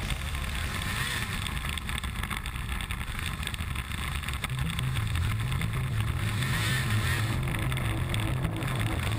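Arctic Cat 900 snowmobile engine running under way. It settles into a steady note about halfway through.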